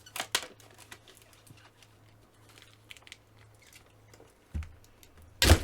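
A knife and gloved hands working the wrapping off a cardboard card box: short scrapes and crinkles, with a sharp flurry just after the start and a loud rustle near the end.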